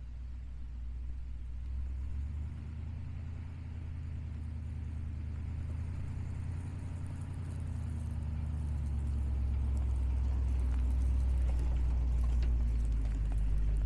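A 1971 International Harvester Loadstar 1600 truck's engine running at low speed as the truck drives, a steady low note that grows louder from about halfway through as the truck comes close and turns past.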